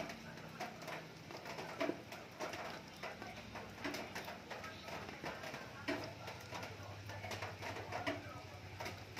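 Light rain dripping and pattering in many small, scattered ticks, with a short low sound repeating about every two seconds.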